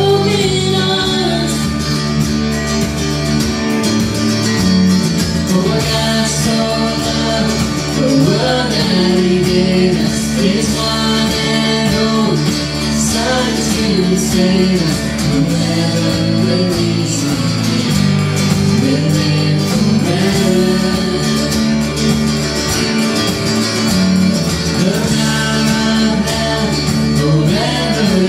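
Worship song with singing over guitar and other instruments, in a country style.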